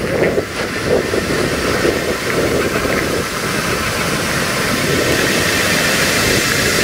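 Heavy shore-break surf crashing and churning: a loud, steady rush of whitewater.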